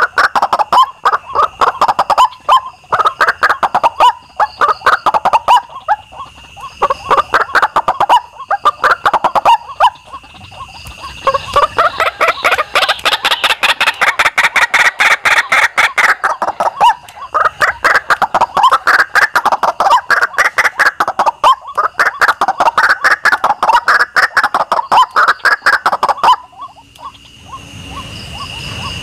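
White-breasted waterhens calling: long phrases of rapid, pulsed croaking that rise and fall, with short breaks and a lull near the end. A steady high whine sounds behind the calls at times.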